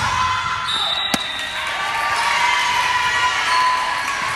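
Indoor volleyball play: the ball is struck with one sharp smack about a second in, and shoes squeak on the court floor.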